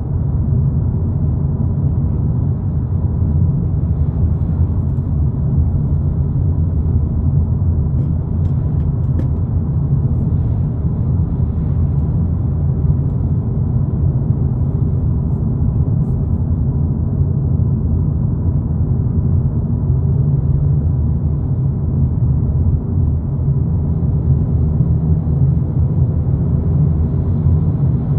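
Steady low rumble of road and engine noise inside the cabin of a Volkswagen Polo GTI driving at speed.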